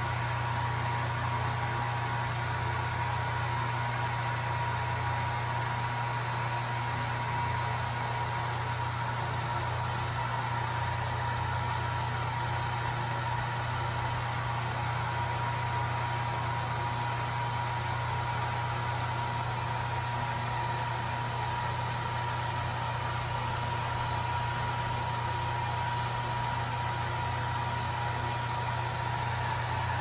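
Electric hair dryer running steadily: an even whir with a low hum and a thin, constant whine.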